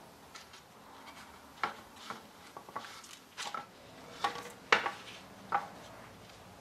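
A string of sharp knocks and light clatters as a wooden table frame is handled and moved about on a workbench, the loudest knock about three-quarters of the way through.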